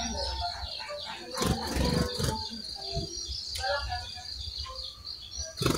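Brown-chested jungle flycatcher singing vigorously, a rapid, varied run of short chirping and warbling notes, over a steady high-pitched whine. Sharp clicks or rustles break in about a second and a half to two seconds in and again near the end.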